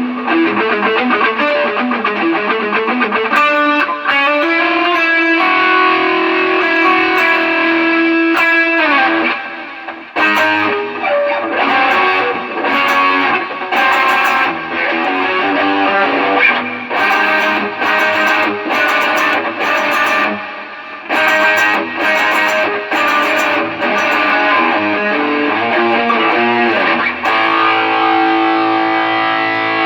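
Electric guitar played through a Line 6 Helix LT multi-effects processor during a sound test after its repair, with some distortion on the tone. Held notes with a downward slide about nine seconds in, then short, choppy chords with brief gaps between them.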